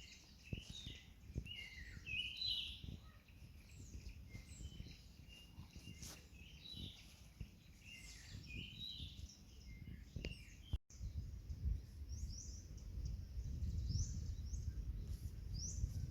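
Wild birds chirping and singing in a forest, many short calls overlapping over a low rumble. About eleven seconds in the sound drops out for a moment, and then one bird repeats short, high, rising chirps while the rumble grows louder.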